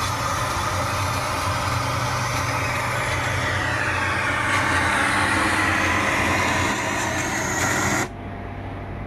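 Party speaker box playing a DJ dance track's noise build-up: a loud hissing sweep that climbs and then cuts off suddenly about eight seconds in.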